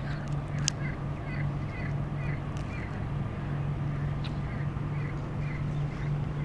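Birds calling over and over, a short call about every half second, over a steady low hum.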